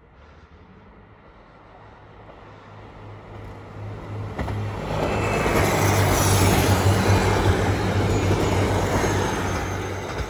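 KiHa 261 series diesel express train approaching and passing close at speed: a rumble that grows steadily louder, becoming a steady engine drone under a wide rushing noise, loudest from about halfway through as the cars go by.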